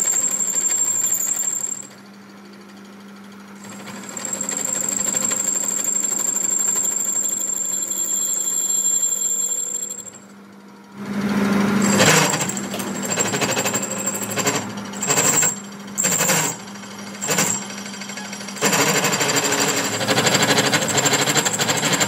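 Power tool working on a steel crankshaft, running loudly in stretches with a high steady whine. It stops and starts several times, breaks into short bursts a little past the middle, then runs steadily again.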